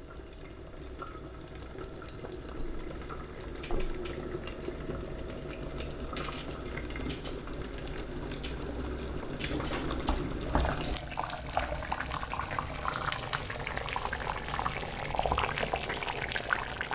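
A pot of thick chicken soup bubbling as it simmers, with a steady run of soft pops and plops that grows busier and louder about two-thirds of the way through.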